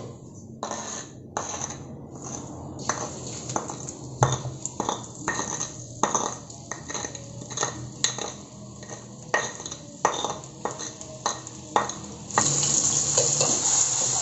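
A spoon repeatedly scraping and knocking ground chili spice paste out of a stone mortar into a wok of hot oil; about twelve seconds in the paste hits the oil and a steady, loud sizzle of frying begins.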